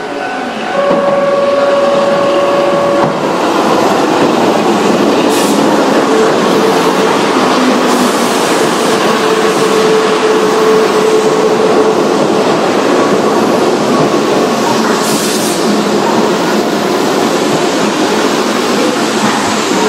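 Keihan electric train running loudly past the platform, with a steady horn blast about a second in that lasts some two seconds, and a held whine through the middle of the pass.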